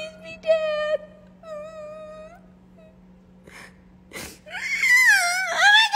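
A woman whimpering and whining in fright: two drawn-out high whines, a couple of sharp breaths, then a louder wavering wail near the end.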